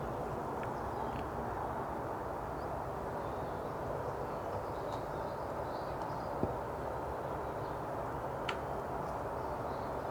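Steady outdoor background noise with no distinct source, and two faint clicks, one about six and a half seconds in and one near eight and a half seconds.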